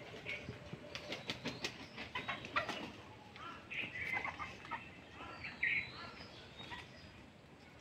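Domestic chickens clucking, with scattered short clicks and scuffs and a couple of brief calls about four and six seconds in.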